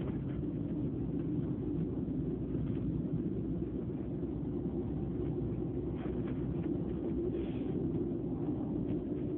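Steady low rumble of a train carriage in motion, heard from inside, with a couple of faint ticks.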